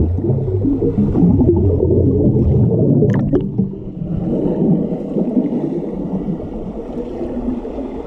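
Muffled churning and bubbling of water stirred by swimmers' kicking legs, heard through an underwater camera's microphone, with a brief crackle of bubbles about three seconds in.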